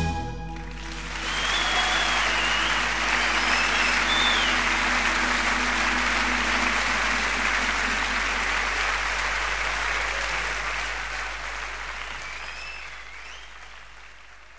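Live concert audience applauding as the band's last chord dies away in the first second; the applause fades out over the last few seconds.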